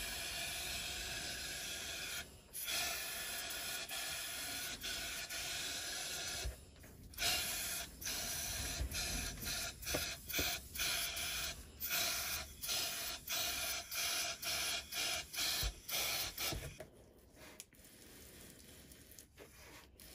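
Air hissing from a powder coating gun spraying powder: two long steady blasts, then a quick series of short puffs, stopping near the end.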